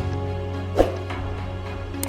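Background music of sustained, held tones over a steady bass, with one short thud a little before a second in.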